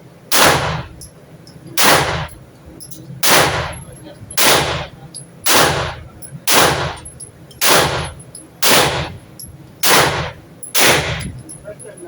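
Ten gunshots fired one at a time at about one a second inside an indoor shooting range, each sharp crack followed by a short echo off the range walls.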